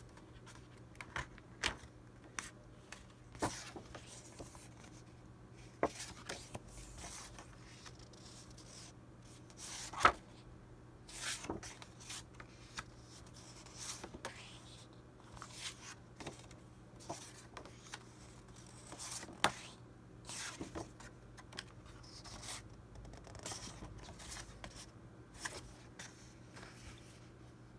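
Sheets of patterned scrapbooking paper and journal cards being handled and flipped through: crisp paper rustles and light taps come at irregular intervals, the sharpest about ten seconds in and again near twenty seconds, over a faint steady low hum.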